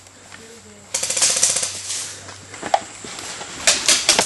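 Airsoft rifle firing a short full-auto burst about a second in, a fast mechanical rattle of roughly twenty shots a second lasting under a second. It is followed near the end by a few separate sharp snaps of single shots.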